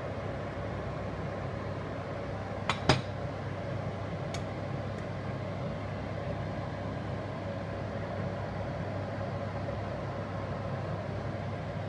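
Saucepan of water with plywood strips boiling on the hob: a steady rumble and hiss. Two sharp metal clinks against the stainless-steel saucepan come close together about three seconds in, and a lighter clink a second later.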